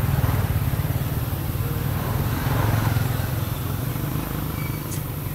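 Low rumble of a motor vehicle engine, swelling about halfway through and easing off again.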